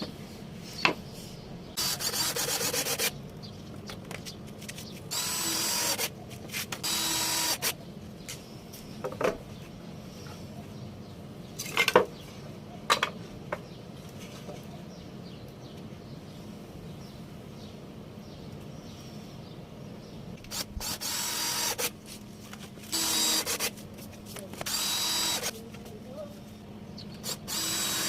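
Power drill running in short bursts of about a second, roughly seven times, with a sharp knock in between; the steady-pitched whir fits driving screws into scrap-wood panels.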